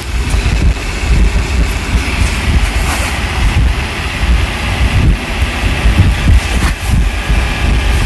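Subwoofer powered by a Class D amplifier playing loud, deep bass that swells and dips unevenly.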